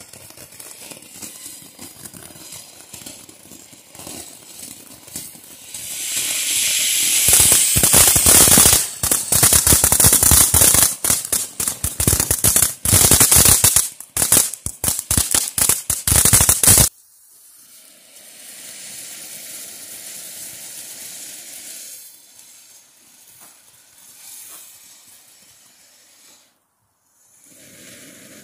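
Ground firework fountains hissing as they spray sparks. About six seconds in, a louder fountain builds to a rushing hiss, then crackles densely for about ten seconds before cutting off suddenly. A quieter hiss follows.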